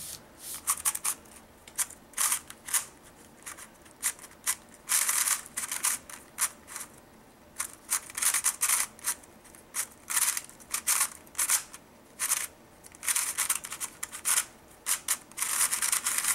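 A loosely tensioned 54.6 mm Fangshi Shuang Ren 3x3 speedcube turned fast in a solve: runs of quick plastic clicking and rattling turns with short pauses between them.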